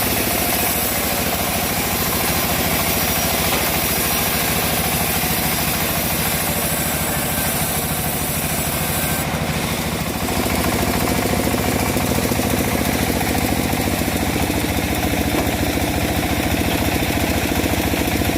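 Engine of a homemade bandsaw sawmill running steadily, its note shifting slightly and growing a little louder about halfway through.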